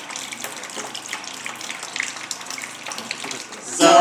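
Water leaking down from above, from a toilet switched on upstairs, splashing steadily into a plastic basin on a tiled floor, with scattered drips. Near the end an acoustic guitar and men's singing start suddenly and loudly.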